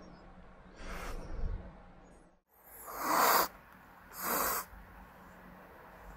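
Young feral kitten hissing three times at a gloved hand stroking it: short, breathy hisses, the second the loudest. A frightened kitten's defensive warning.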